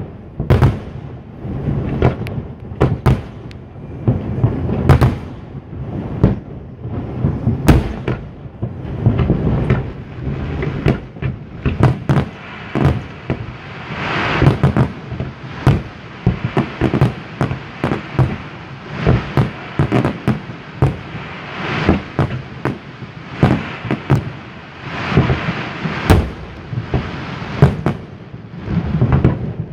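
Fireworks display: many aerial shell bursts in quick succession, bangs and booms overlapping one another, with spells of dense crackling.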